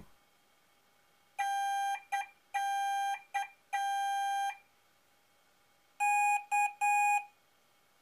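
Electronic beeps from small speakers sending Morse-style code: first a query of long, short, long, short, long beeps, then the microcontroller's answer of long, short, long, the Morse letter K, in the same steady tone and slightly louder.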